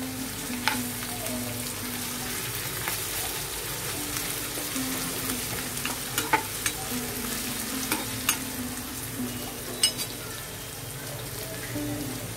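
Chopped onions, capsicum, carrot and beans sizzling as they fry in oil in a non-stick pan, stirred with a steel spoon, with scattered clicks of the spoon against the pan.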